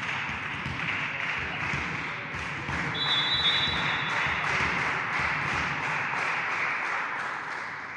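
Spectators cheering with rhythmic clapping, about three claps a second. About three seconds in, a referee's whistle sounds once for about a second and a half, signalling the serve.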